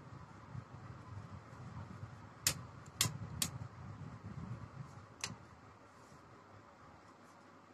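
Hands handling a Philips hair straightener and its cord: a low rustle with sharp clicks, three close together about two and a half seconds in and one more about five seconds in.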